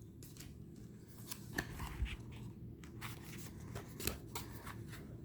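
Tarot cards being handled: a few soft clicks and light rustles as cards are moved, over faint room noise.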